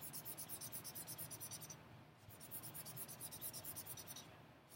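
Felt-tip marker shading back and forth on flip-chart paper: faint, quick scratchy strokes, about seven a second, pausing briefly about two seconds in and again near the end.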